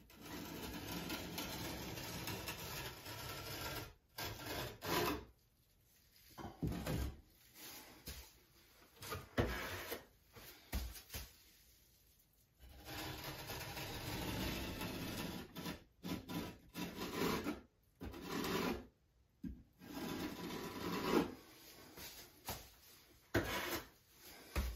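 A small hand roller rolled back and forth over a paper-faced glass tile mosaic, pressing the tiles into the thinset so they adhere. It runs in strokes of a few seconds, with short pauses between passes.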